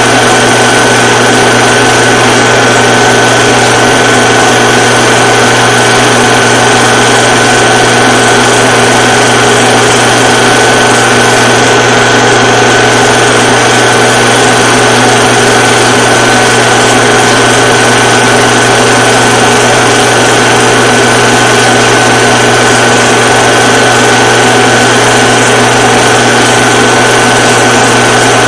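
Film projector running: a loud, steady mechanical whirr with a constant high whine.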